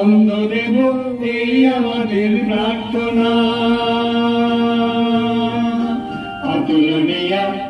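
Men's voices singing a slow devotional hymn over an electronic keyboard, with one long held note in the middle and a new phrase beginning about six seconds in.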